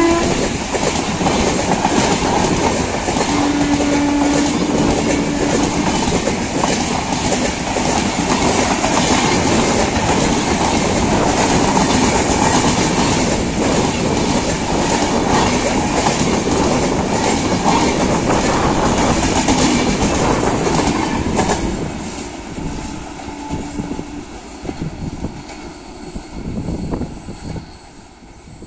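LHB passenger coaches of an express train passing close by at speed without stopping, wheels clattering over the rail joints in a loud, dense rush. The noise drops off about 22 seconds in and fades as the last van draws away.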